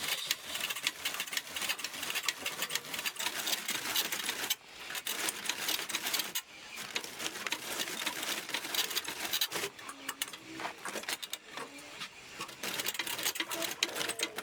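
Rapid, steady mechanical clattering, most likely a power tool working wood, with two short breaks about four and a half and six and a half seconds in.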